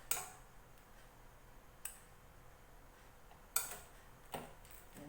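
Hand-press plastic bag sealer being tried out after repair: four sharp clacks as its arm is pressed down and lifted, the loudest near the start and about three and a half seconds in.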